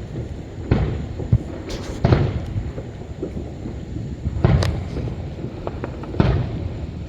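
Fireworks shells bursting: four deep booms about one and a half to two seconds apart, each trailing off, with smaller crackling pops between them.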